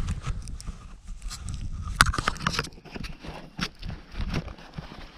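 Irregular clicks, scrapes and crackles of hands working in dry soil and corn stubble while cleaning dirt off a freshly dug find, over a low rumble; the sharpest click comes about two seconds in.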